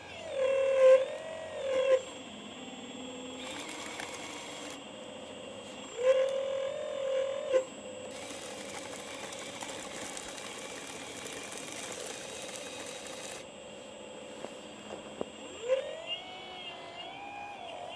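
Remote-controlled scale excavator's electric motors whining in three bursts, the pitch rising and falling as it moves. Between them, two stretches of steady high hiss, the longer lasting about five seconds, and a few small clicks near the end.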